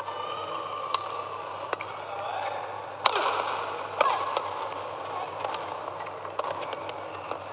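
Badminton rally: sharp cracks of rackets striking the shuttlecock, roughly once a second, with court shoes squeaking on the court mat over a steady arena background.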